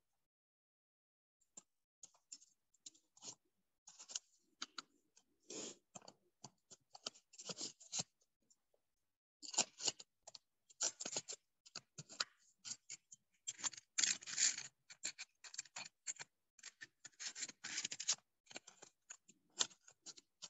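Chart paper being handled and worked by hand: irregular rustling, crinkling and scraping in quick clusters, busiest in the second half, with abrupt drops to silence between them as heard over a video call.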